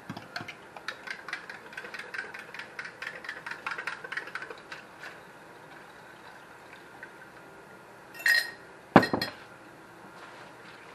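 Kitchen utensils clicking and scraping against a stainless steel stockpot in a quick, irregular run for about five seconds. Near the end comes a ringing metal clink, then a sharp knock that is the loudest sound.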